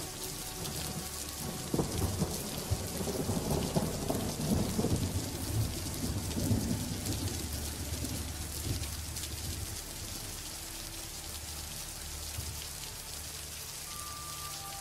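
Underwater sound picked up by a camera in a waterproof housing: a steady low rumble with fine crackle. A louder stretch of irregular knocks and rustling runs from about two to nine seconds in, then it settles back.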